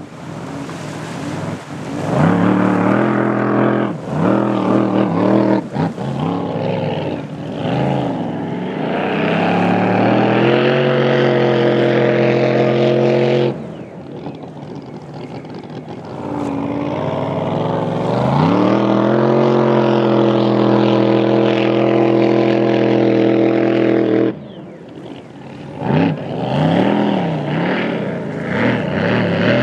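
Supercharged engine of a blown flat-bottom drag boat running hard on the water: the engine note climbs in pitch as the boat accelerates, then holds at a steady high rev. This happens in separate runs that cut off suddenly about 13 s in and again near 24 s, with another climb starting after that.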